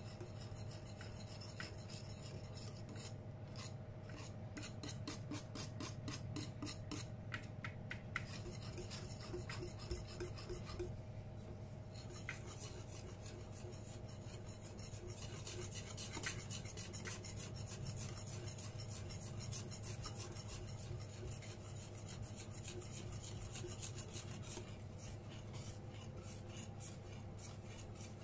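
Hand whisk beating flour into chocolate cake batter in a glass bowl, its wires scraping and ticking rapidly against the glass.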